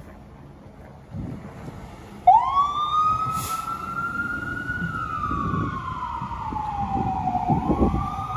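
Fire truck siren starting a little over two seconds in. It sweeps quickly up in pitch, then falls slowly and climbs again in a slow wail, over a low engine rumble.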